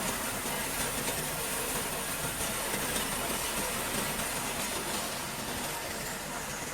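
Industrial crusher of a refrigerator recycling line running, a steady dense mechanical noise as shredded fridge material is broken into smaller pieces.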